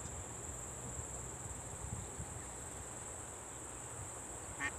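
Steady high chirring of insects, with a low rumble of wind on the microphone beneath it. A short pitched sound comes near the end.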